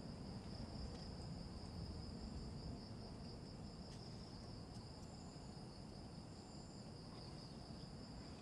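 Crickets chirring at night in a faint, steady, high-pitched drone.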